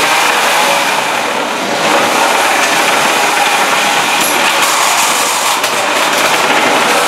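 Small combat robots' electric motors whirring in a loud, steady din, with a few sharp knocks of robots hitting each other or the arena.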